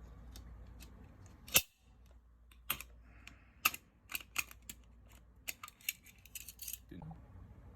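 Sharp clicks and taps of a pistol magazine's spring, follower and baseplate being handled and pressed while the baseplate is slid onto the magazine body. One loud click comes about a second and a half in, then scattered clicks, with a quick run of them near the end.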